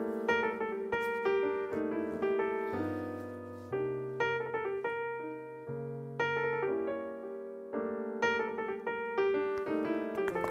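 Background piano music: a melody of single struck notes over a slowly changing bass line.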